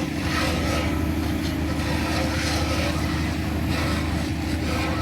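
Fire truck engine idling steadily, a constant low hum.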